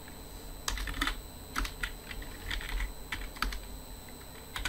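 Typing on a computer keyboard: a run of irregular keystrokes starting about a second in, then one more near the end.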